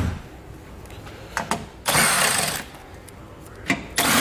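A handheld cordless power tool fitted with a 10 mm socket runs in two short bursts, about two seconds in and again near the end, backing bolts out of a car's underbody splash shield. A few light clicks come before each burst.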